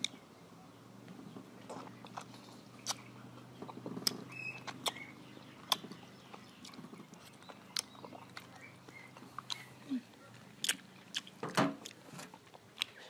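Mouth sounds of a person eating mango slices: irregular sharp smacks and clicks of the lips and teeth as the flesh is bitten and sucked off the peel, with chewing.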